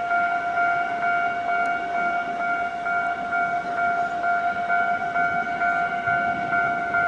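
Japanese level-crossing warning bell ringing: a steady, high electronic tone that runs without a break, over a low rumble.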